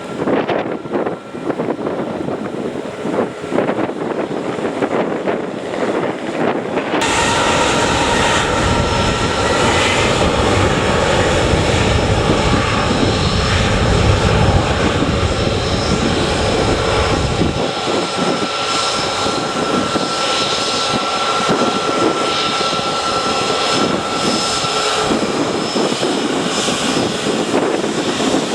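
Jet engines of a Boeing 737 MAX 8 running loud with a steady whine. About seven seconds in the sound jumps louder and a deep rumble comes in, which drops away about ten seconds later while the whine goes on.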